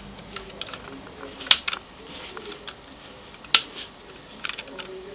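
Sharp plastic clicks and taps from a white plastic telephone plug adapter being handled and fitted against a wall socket, two louder clicks about a second and a half apart with lighter ticks between.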